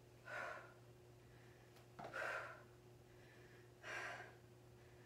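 A woman's sharp breathy exhales, three of them about two seconds apart, one on each crunch of an abdominal exercise.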